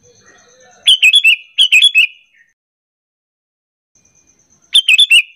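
Sooty-headed bulbul calls: two short, bubbly phrases of quick up-and-down notes about a second in, then a third phrase near the end. This is a kutilang lure call, meant to get other bulbuls calling back.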